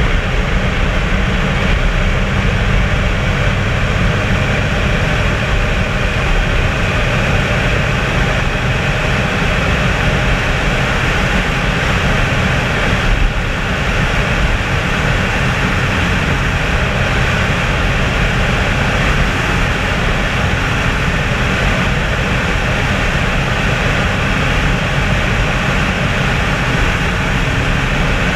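2004 Dodge Ram 1500's 5.7 L Hemi V8 running at a steady cruise through straight-piped true dual exhaust with Dynomax Race Bullet mufflers, heard from outside the moving truck with wind rushing over the camera and tyre noise from the road.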